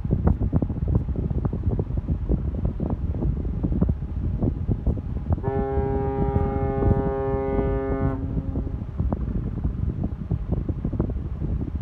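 A ship's horn sounds one steady blast of about two and a half seconds, starting about halfway through, over wind buffeting the microphone.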